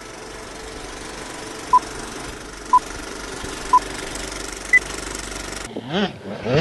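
Old-film projector sound effect: a steady whirring clatter with hiss, with four short beeps a second apart, the last one higher, like a film countdown leader. Near the end it cuts off and a dirt bike engine revs up and down.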